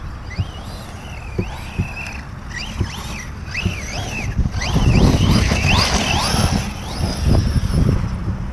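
Reely Raptor 6S RC truck's brushless electric motor whining, its pitch rising and falling sharply with each blip of the throttle, over a steady low rumble. It grows louder and rougher a little past halfway.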